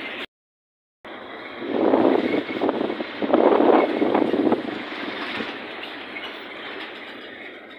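Road noise heard from inside a moving vehicle. The sound drops out briefly near the start, then swells into a loud, uneven rushing for about three seconds before settling back to a steady hum.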